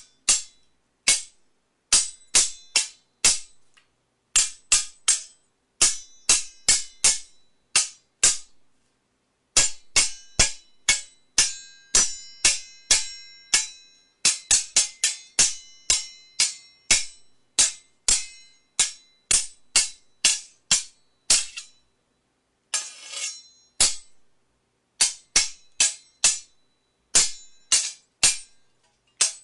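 Steel sword blades clashing in rapid flurries of two to five strikes, each hit ringing briefly. About three quarters of the way through there is a longer grating scrape of blade sliding along blade.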